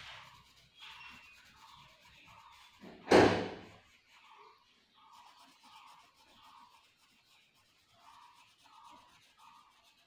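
Colored pencil rubbing on paper in short repeated strokes, with a single loud thump about three seconds in.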